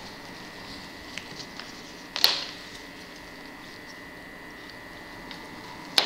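Quiet handling of a dental apex locator's cable and file holder as they are connected: a sharp click about two seconds in and a few faint ticks, over a faint steady high whine.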